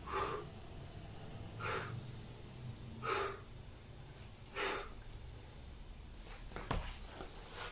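A man's sharp exhalations, four breaths about one and a half seconds apart, one with each crunch as he curls up toward his raised feet. A light knock near the end.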